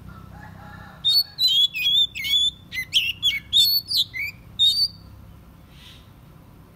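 Oriental magpie-robin singing a quick run of about a dozen sharp, sliding whistled notes, starting about a second in and stopping about four seconds later.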